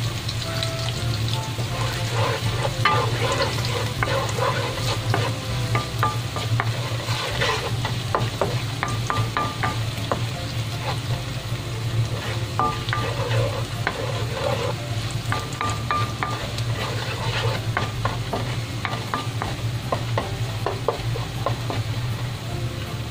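Chopped garlic sizzling and popping in hot oil in a nonstick wok, stirred with a wooden spatula, over a steady low hum.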